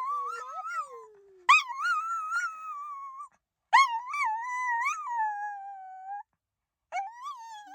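A dog's 'I love you' howl: about four long, wavering calls that bend up and down in pitch, with short pauses between them.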